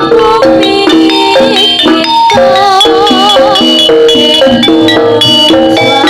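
Loud live jaranan music: an ensemble of pitched metal percussion playing a stepped, fast melody over drums.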